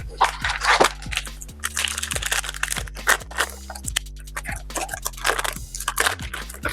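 Background music with a bass line and drum beat, over crackling and crinkling of trading card pack wrappers and cards being handled.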